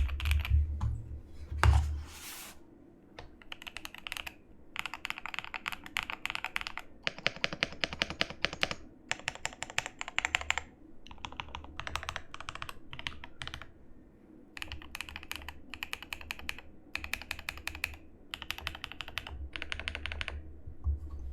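GMK67 mechanical keyboard with lubed JWK linear switches on a polycarbonate plate and knockoff BOW keycaps, typed on in fast bursts of keystrokes with short pauses between them. One louder knock comes about two seconds in.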